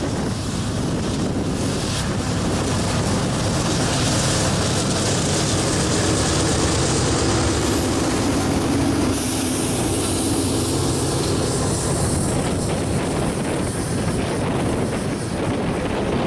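Canadian Pacific diesel locomotives passing close at the head of a loaded ethanol tank-car train: engines running and steel wheels rolling over the rails in a steady, loud rumble. There is some wind noise on the microphone.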